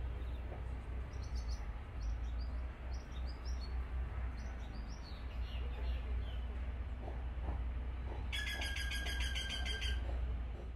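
Birds chirping, with scattered short high chirps in the first half and a loud, rapid trill from about eight seconds to ten seconds, over a steady low rumble.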